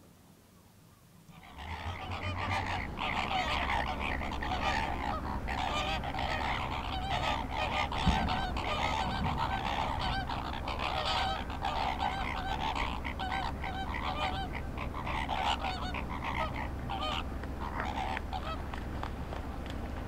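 A flock of greater flamingos honking continuously in a goose-like clamour during their group courtship display, starting about a second and a half in, with a steady low rumble underneath.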